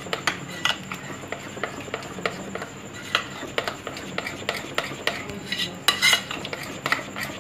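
A metal spoon stirring chocolate lava cake batter, thinned with a little milk, in a glass bowl, scraping and clinking against the bowl in irregular taps, with a louder clink about six seconds in.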